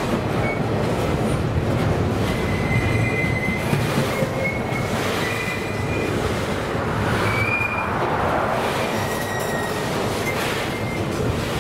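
Container flat wagons of a freight train rolling past close by: a steady rumble of steel wheels on the rails, with short high-pitched squeals from the wheels several times.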